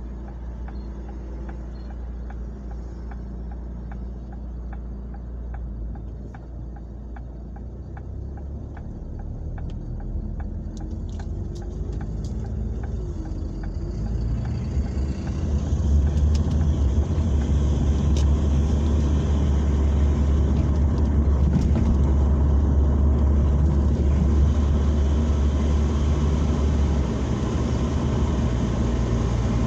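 Car interior noise: the car idles at a standstill with a light regular ticking about twice a second, then pulls away, and engine and tyre noise build into a loud steady low rumble from about halfway on.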